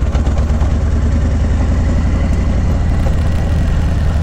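Harley-Davidson Low Rider S's V-twin engine running steadily with an even low exhaust pulse while the bike is ridden.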